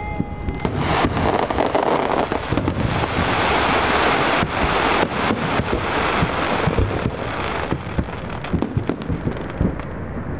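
Aerial fireworks going off in rapid succession: a dense crackling wash punctuated by many sharp bangs, thickest in the middle seconds. A short steady whistle sounds at the very start.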